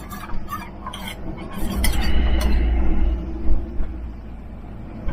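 Utensils clinking and scraping against a bowl as a meal is stirred, with a series of sharp clicks in the first two and a half seconds. Underneath, a steady low rumble of strong wind buffeting the trailer RV swells for a second or so in the middle.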